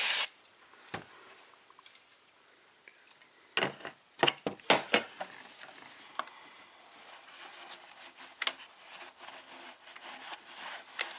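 Aerosol throttle-body cleaner spray cutting off just after the start. Then come sharp clicks and knocks of hand tools and parts on the throttle body, loudest in a cluster near the middle. Faint high chirps repeat about twice a second throughout.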